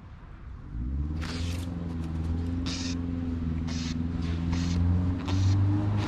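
A steady, low engine rumble from a motor vehicle, starting about a second in, with a few short hissing noises over it.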